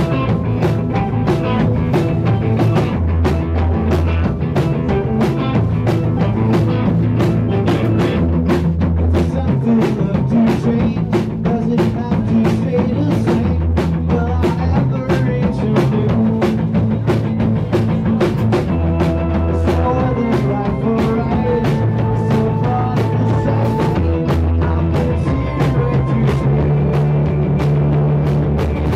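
Live rock band playing: a drum kit keeping a steady beat under electric and acoustic guitars, bass and synth keyboard.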